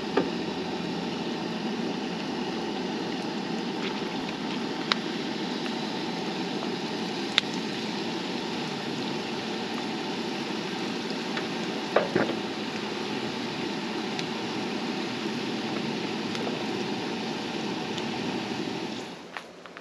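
Sweet potato fries frying in hot oil in a skillet: a steady sizzle with a few sharp clicks, cutting off near the end.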